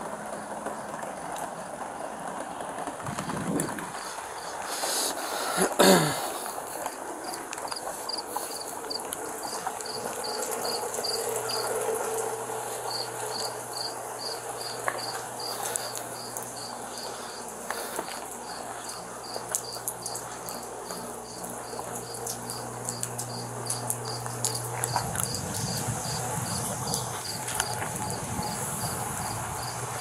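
Crickets chirping in a steady, even pulse, about four chirps a second, over the noise of a wet night outdoors. A brief loud noise comes about six seconds in, and a low steady hum runs from about ten to twenty-five seconds in.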